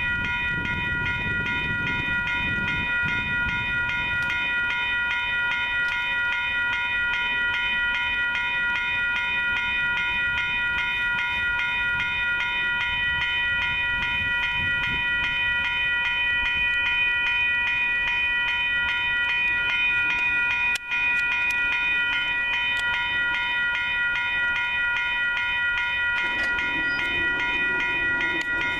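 Railroad grade-crossing warning bell ringing steadily and rapidly, a sign that the crossing signals are active for an approaching train.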